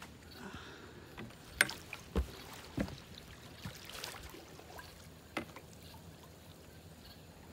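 A long-handled dip net swept through the water after a shrimp beside a boat: a few sharp knocks and splashes, the loudest about a second and a half in, two more within the next second or so and another about five seconds in.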